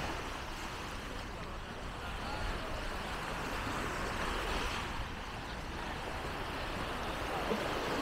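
Beach ambience: a steady wash of surf and wind with faint voices of people in the distance.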